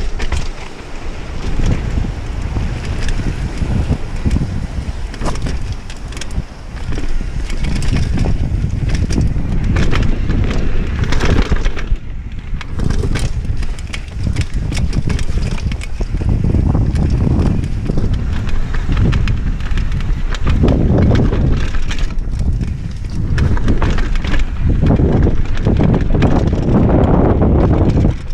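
Wind buffeting the camera microphone over the crunch of a 2012 Intense M9 downhill mountain bike's tyres on dirt and rock during a fast descent, with the bike rattling and knocking over rough ground.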